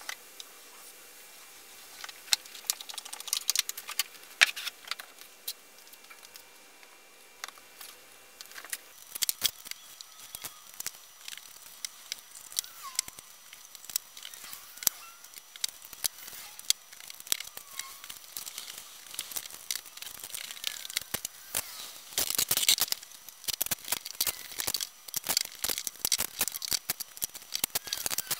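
Clear plastic cling wrap crinkling and crackling as it is pulled off the roll, stretched and smoothed over an exercise ball: a run of sharp crinkles, busier in the second half.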